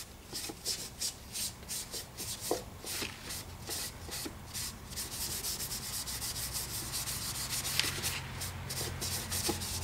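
A tissue rubbed back and forth over the plastic roof of a model building, working dry charcoal in for a weathered look. Quick strokes, several a second, run together into steadier rubbing after about five seconds.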